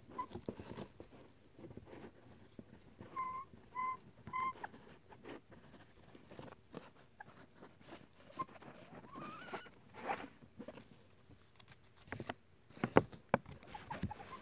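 Miniature hens giving soft, short high-pitched clucks, three in quick succession about three seconds in and a rising call near ten seconds, over rustling and scratching in loose wood-shaving bedding and a plastic bag liner. The sharpest rustles come near the end.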